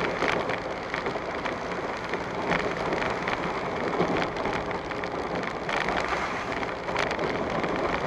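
Vehicle driving slowly over a rutted dirt road, heard through a dashcam: steady tyre and road noise with scattered knocks and rattles from the bumps.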